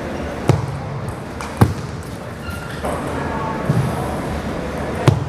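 Table tennis ball striking table and bats: four sharp, separate clicks over the steady noise of the hall, the first two the loudest.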